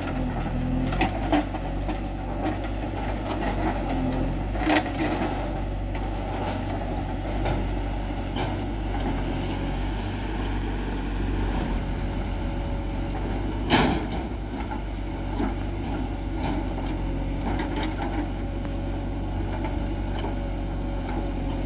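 JCB 3DX backhoe loader's diesel engine running steadily as it digs soil and swings it into a tractor trolley, with scattered knocks of clods and the bucket. One sharp knock about fourteen seconds in is the loudest sound.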